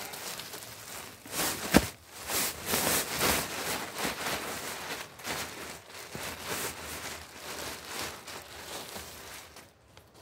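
Black plastic bin bag crinkling and rustling as grass clippings are shaken out of it into a plastic compost bin, with one sharp knock a little under two seconds in. The rustling dies away near the end.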